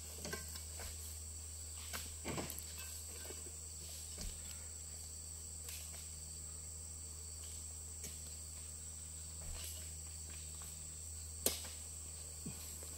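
A steady, high-pitched shrill of insects, over a constant low hum. A few short knocks of oil palm fruit bunches being speared and thrown up onto a truck break in now and then, the loudest near the end.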